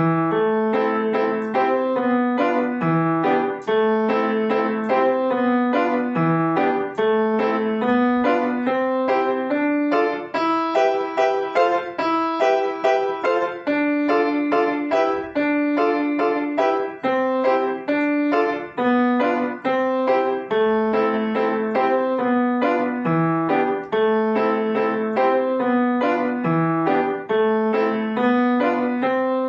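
Piano playing a fast toccatina: a steady stream of quick, even notes over a recurring bass figure, starting abruptly.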